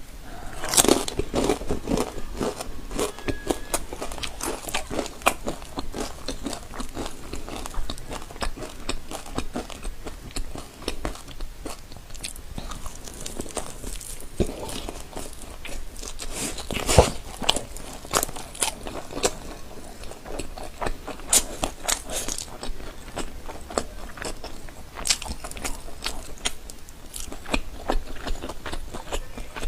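Close-miked biting and chewing of crunchy food: sharp crunches one after another, the loudest about seventeen seconds in.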